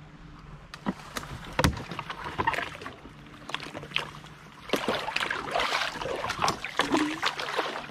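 Creek water splashing and sloshing with sharp knocks as a submerged chair is worked loose and pulled out of the water; the splashing grows louder and busier a little past halfway.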